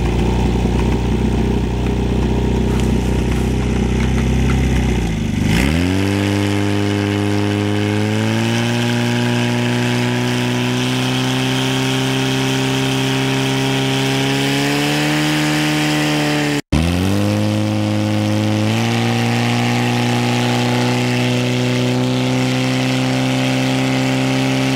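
Portable fire pump's engine running hard with the throttle opened. It runs rough and low at first, then about five seconds in the note dips and climbs steadily in pitch as it revs up, briefly cutting out about two-thirds of the way through before climbing again.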